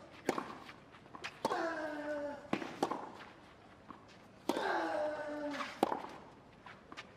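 Tennis rally on a clay court: racket strikes on the ball about every second and a half, with a player's loud grunt, falling in pitch, on every other shot, twice and again at the very end.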